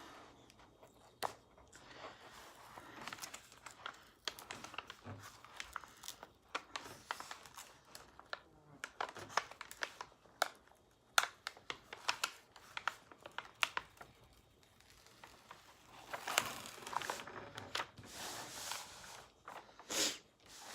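Diamond painting canvas being handled and pressed down, its plastic film crinkling and crackling in many short, sharp crackles, with denser stretches near the end.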